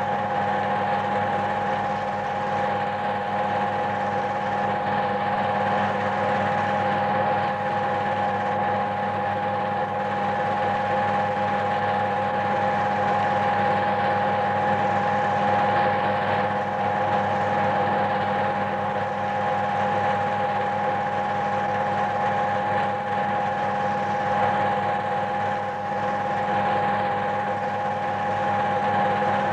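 A steady mechanical hum with a constant high whine over lower tones, unchanging throughout.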